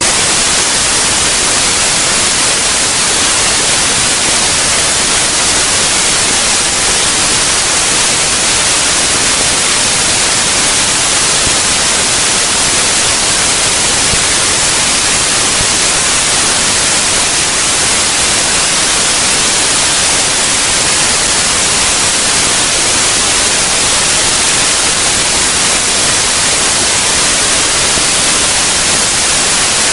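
Loud, steady white noise: an even hiss like static that does not change at all.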